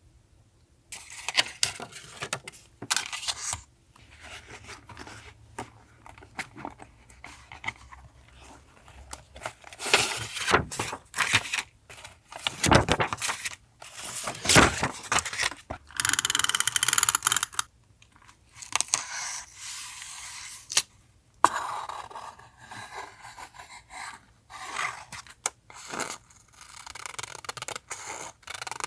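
Paper collage materials being handled in a journal: irregular rustling, scraping and tearing of paper. A longer continuous rip comes about sixteen seconds in.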